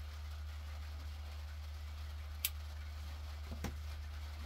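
A lighter being used to light a tobacco pipe: one sharp click about two and a half seconds in and a duller knock about a second later, over a steady low hum and hiss.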